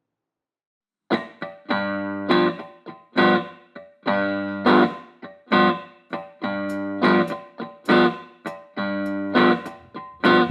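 Background music of plucked guitar notes, starting about a second in after a short silence.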